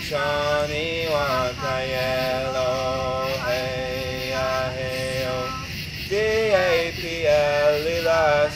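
Background music: a man singing long held notes that step up and down between short breaths, over a low steady backing.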